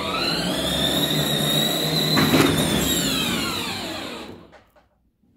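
Battery-powered ride-on toy jeep's electric drive motors and gearboxes whining as it drives, the pitch rising as it speeds up and falling as it slows and stops about four and a half seconds in. A single knock about two seconds in.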